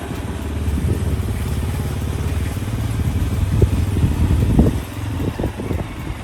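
Motorcycle engine running steadily while riding along, with a few short sharper sounds over it about four to five and a half seconds in.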